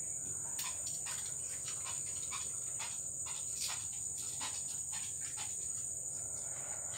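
Steady high-pitched chirring of crickets, with scattered faint clicks and taps.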